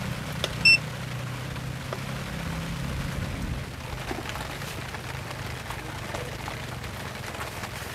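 Rain falling steadily, with many separate drop hits over a low steady rumble. About two-thirds of a second in there is a single short, high-pitched ping, the loudest thing here.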